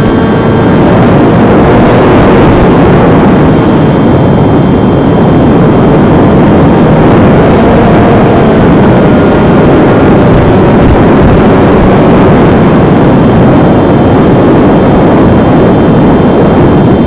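Loud, steady rush of wind on the microphone, with a faint motor whine that rises and falls in pitch from a Versa Wing RC flying wing in flight.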